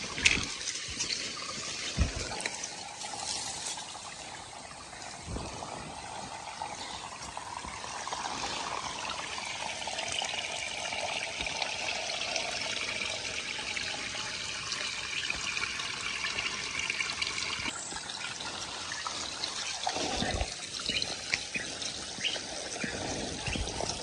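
Small shallow stream trickling and splashing over rocks, a steady watery hiss, with a few faint knocks.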